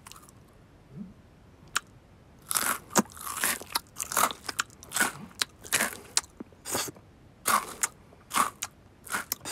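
Cartoon cat crunching and chewing crisp food. After a quiet start, a run of loud, crunchy bites begins about a quarter of the way in and carries on at about two a second.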